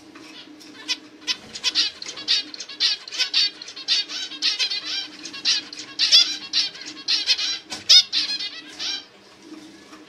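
Male zebra finch chirping: a rapid, dense run of short notes that starts about a second in and stops about nine seconds in, loudest near the sixth and eighth seconds.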